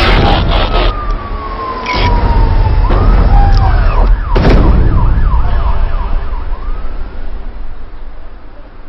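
Robot transformation sound effects: mechanical whirs gliding down in pitch, then warbling quickly up and down like a siren, with metallic knocks at the start, about two seconds in and about four and a half seconds in, over a low rumble.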